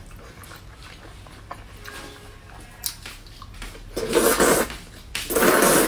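Two loud wet slurps about a second apart near the end, a mouth sucking spicy sauce off food while eating.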